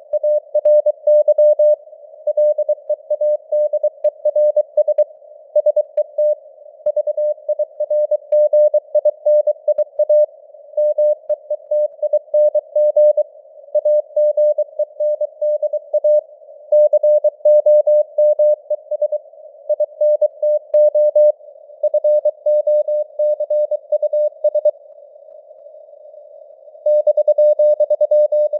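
Morse code (CW) at about 23 words per minute: a single tone near 600 Hz keyed in rapid dots and dashes over a band of simulated radio hiss, its strength rising and falling (QSB). About two seconds before the end the keying pauses, leaving only the hiss, then resumes.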